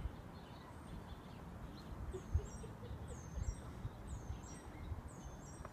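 A small bird chirping: pairs of short, high, falling notes repeated about once a second, starting about two seconds in. Under it runs a faint low outdoor rumble, with one soft low thump about two and a half seconds in.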